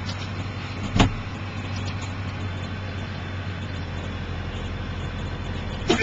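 New Holland TS115A tractor running steadily under load, powering a New Holland 790 forage harvester chopping corn silage, heard from inside the tractor cab. A single sharp knock stands out about a second in, and a few clicks come near the end.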